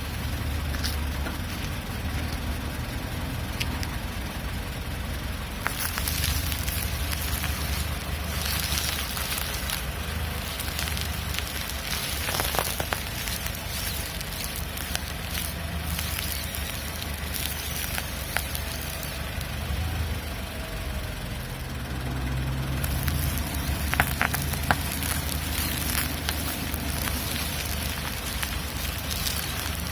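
Rubber creaking and squeaking from the steering of a Mitsubishi Lancer X as the steering wheel is turned, over the low steady hum of the idling engine, with a few sharper creaks.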